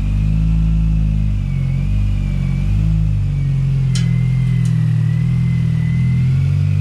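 A Mini Cooper S's supercharged 1.6-litre four-cylinder engine running and being revved gently as the car is driven, its low note rising and falling a little, with a thin high whine over it.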